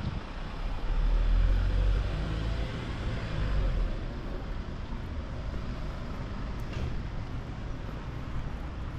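Street traffic: a steady rumble of passing vehicles, with one vehicle going by louder between about one and four seconds in.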